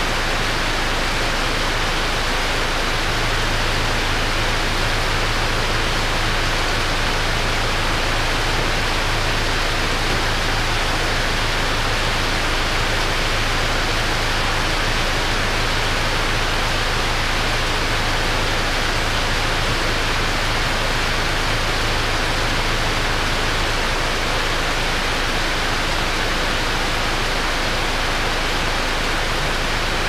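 Heavy tropical downpour: rain falling hard in a dense, steady hiss. A faint low steady hum runs underneath, stronger through the middle.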